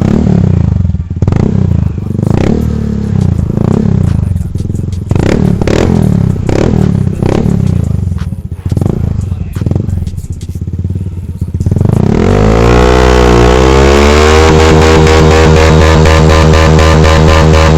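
Honda Vario 150 scooter's single-cylinder engine, breathing through a Prospeed aftermarket racing exhaust, blipped repeatedly in a quick series of short revs. About twelve seconds in it revs up and is held at high revs, starting to drop near the end.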